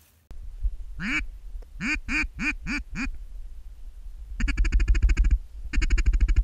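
Mallard-type quacking: one quack about a second in, a run of five evenly spaced quacks, then two bursts of fast chattering quacks, over a low rumble.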